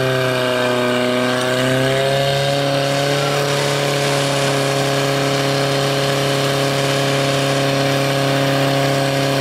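Portable fire pump engine running steadily at high revs, feeding the hose lines while the nozzles spray water at the targets.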